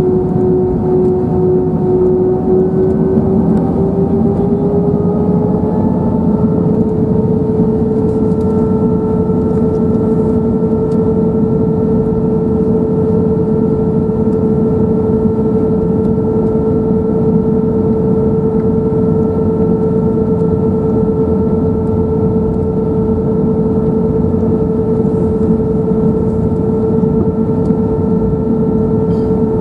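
Inside the cabin of an Airbus A321-212, the engines (CFM56 turbofans) running at low power while taxiing: a steady rumble with a fan whine that rises a little in pitch about three to six seconds in, then holds level.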